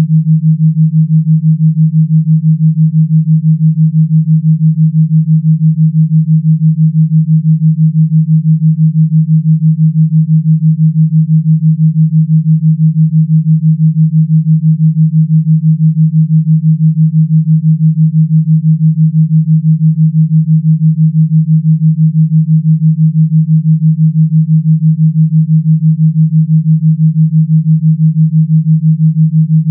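A steady, low, electronically generated pure tone, pulsing rapidly and evenly in volume: a gamma-wave brainwave-entrainment tone.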